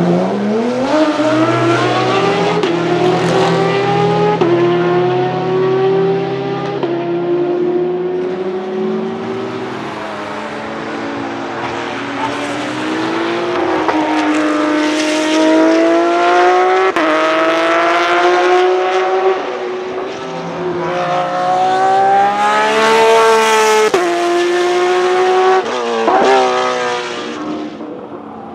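Porsche 991.2 GT3 R's naturally aspirated 4.0-litre flat-six, running a straight, unmuffled exhaust, accelerating hard through the gears: the pitch climbs steeply and drops sharply at each upshift, over several runs with a falling stretch as it lifts off between them.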